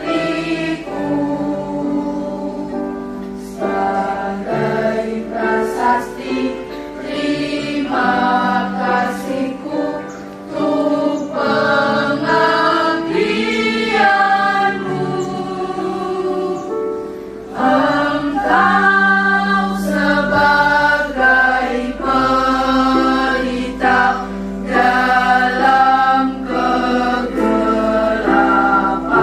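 Student choir singing together into microphones, led by a conductor, with notes held about a second each.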